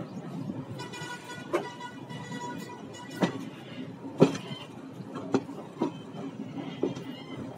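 Moving train with a steady rumble and a sharp clunk every second or so, and a horn held for about two seconds near the start.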